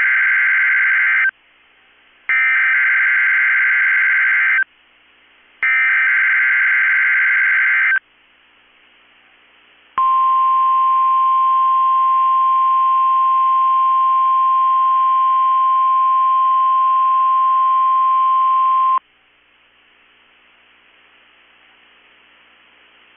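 NOAA Weather Radio Emergency Alert System activation for a test tornado warning. The SAME digital header sounds as a harsh two-tone warbling data burst, heard three times with about a second of quiet between. About ten seconds in comes the steady 1050 Hz weather radio warning alarm tone, held for about nine seconds, followed by faint hiss.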